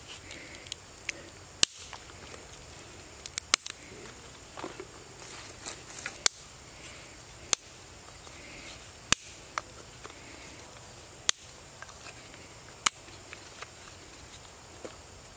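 Thin dry sticks snapped by hand into short kindling pieces, a sharp crack every second or two, with a quick run of three cracks about three and a half seconds in.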